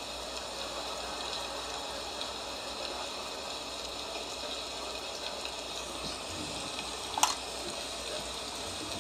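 Steady rushing hiss, with one sharp click about seven seconds in.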